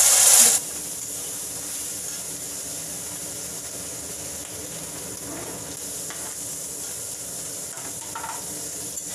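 Onion and tomato masala frying in oil in a kadai, sizzling steadily. The sizzle is louder for the first half second, then settles lower, with a few faint knocks.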